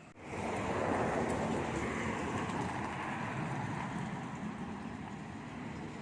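Passing road vehicle: a steady rushing noise that starts abruptly and slowly fades.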